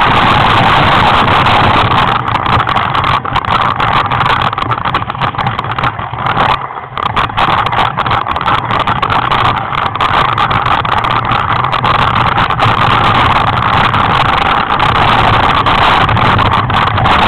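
Heavy wind buffeting on an Oregon Scientific ATC2K helmet camera's microphone, a loud, steady, rough rushing noise that drops away briefly about seven seconds in.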